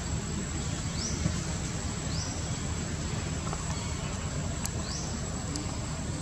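Outdoor background ambience: a steady low rumble under a continuous thin high tone, with three short rising chirps at about one, two and five seconds in.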